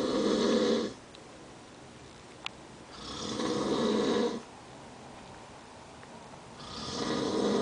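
A sleeping man snoring: three long snores about three and a half seconds apart, each swelling in loudness and then cutting off sharply.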